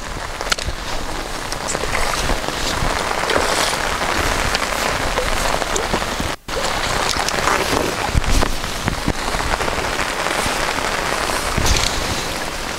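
Heavy rain falling steadily on a lake, with a momentary break in the sound about halfway through.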